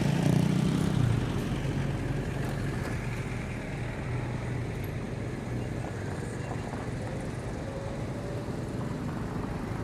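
Diesel freight locomotive engine running with a low, steady throb, loudest in the first second and then easing to a steady lower level.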